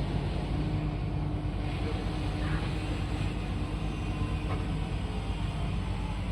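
Large diesel engines of heavy mining machinery running steadily, with a few faint knocks over the engine hum.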